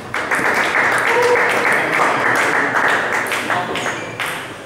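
Spectators applauding after a point, a dense clapping that fades over about four seconds, with a couple of sharp table-tennis ball strikes near the end as play resumes.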